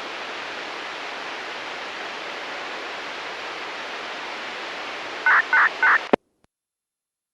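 Steady radio hiss from an ICOM IC-R6 receiver tuned to an analog disaster-prevention radio channel just after the chime ends. A little after five seconds in come three short tone beeps, then the sound cuts off with a click into silence as the transmission ends.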